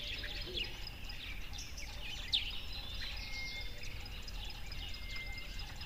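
Outdoor bird chorus: many short chirps and calls, with a few longer level whistles from about three seconds in, over a steady low background rumble.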